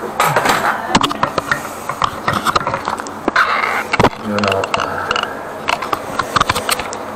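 Irregular scraping, clicking and clattering of drain-cleaning gear being handled and dragged on a wet tiled floor.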